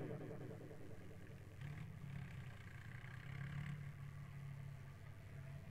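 Faint, steady running of a diesel tractor engine.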